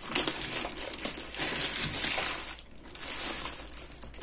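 Shipping packaging being torn open by hand with a fingernail: rasping, tearing and crinkling in bursts, with a short pause a little past halfway.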